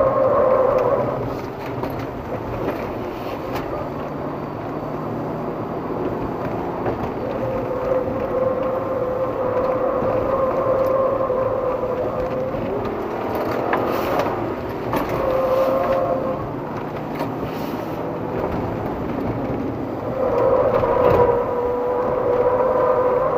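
A car driven hard through a tight course of markers, heard from inside the car: engine and tyre noise, with a steady high tone that comes and goes in stretches of several seconds.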